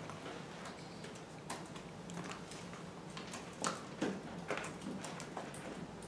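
Marker pen writing on a whiteboard: irregular taps and short scratching strokes, the strongest a little past halfway, over a faint steady low hum.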